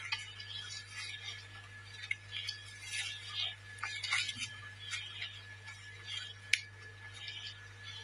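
Footsteps in flip-flops on a dry, leaf-covered dirt path: short crunches and scuffs about every half second, with one sharp click about six and a half seconds in. A faint steady high tone and a low hum run underneath.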